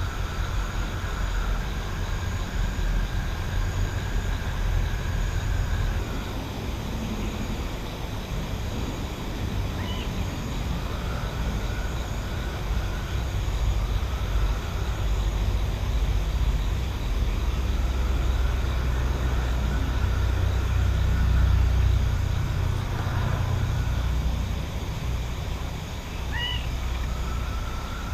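Countryside night ambience dominated by a steady low rumble that swells around the middle, with a thin high trill above it and two short rising chirps, about ten seconds in and near the end.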